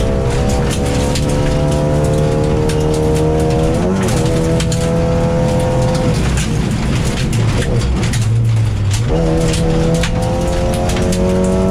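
Rally car engine revving hard, heard from inside the cabin: the pitch climbs, dips at a gear change about four seconds in, falls away as the throttle is lifted about six seconds in, then climbs again from about nine seconds. Gravel clicks and knocks against the car's underside throughout.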